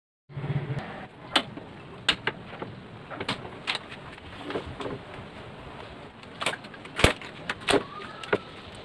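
Quick-release bar clamps being loosened and lifted off a glued wooden chair frame, with rubber straps pulled away: scattered sharp clicks and knocks of the clamps and wood being handled, the loudest about seven seconds in.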